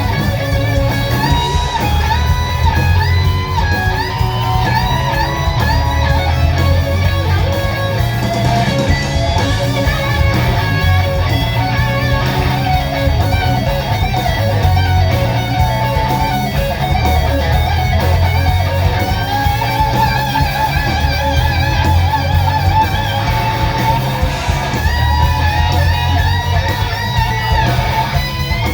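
Electric blues band playing a slow blues: a lead electric guitar solos with string bends and wide vibrato over bass and drums.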